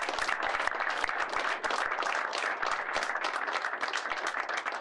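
A small seated audience applauding: many people clapping steadily.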